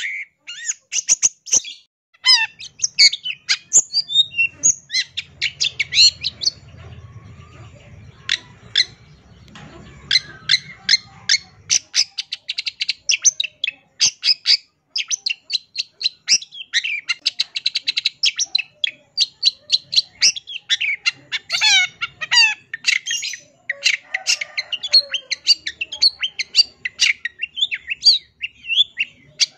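Long-tailed shrike (cendet) singing a fast, varied song packed with mimicked notes ('full isian'): rapid sharp chattering notes and quick down-slurred whistles in bursts with short pauses.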